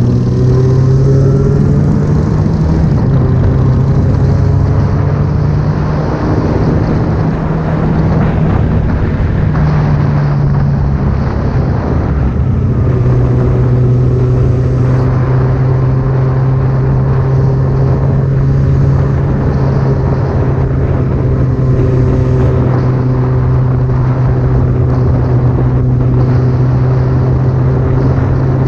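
A loud vehicle engine running at fairly steady revs, its pitch shifting a few times in the first half before settling to an even drone.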